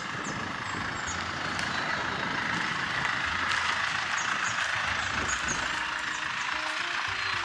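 A steady rushing noise with faint, short high chirps now and then.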